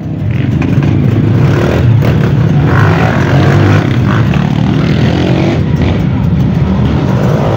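Many motorcycle engines, mostly dirt bikes, running together in a loud, steady din.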